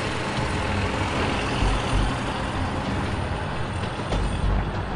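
Steady street traffic noise: the low rumble of a large motor vehicle running, with a constant hiss of road noise.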